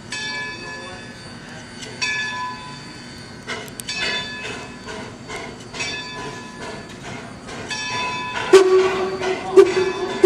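Steam locomotive No. 26's bell ringing, slowly at first and then faster. Near the end its steam whistle blows two blasts.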